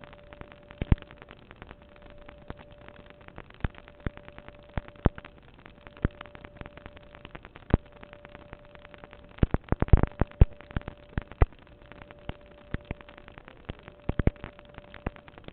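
Irregular sharp pops and clicks, scattered at uneven intervals with a dense flurry about ten seconds in, over a faint steady tone.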